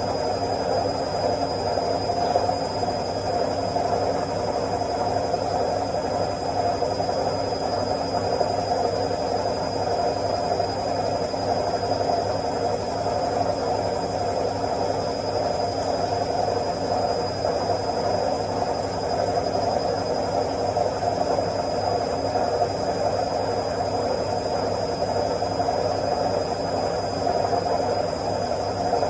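Washing machine on its spin cycle: a steady whirring hum that keeps an even pitch.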